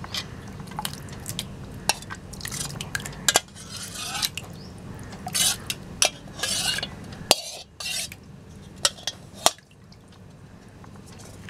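Set curd being scraped and emptied out of a steel bowl into a muslin-lined strainer: scattered clinks of metal and several short scraping sounds a few seconds apart.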